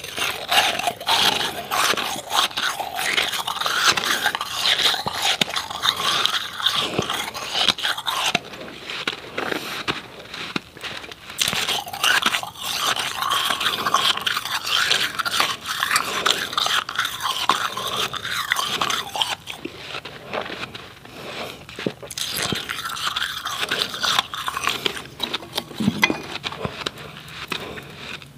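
A person crunching and chewing powdery refrozen ice: a continuous run of dense, irregular crackling crunches as the ice breaks up between the teeth.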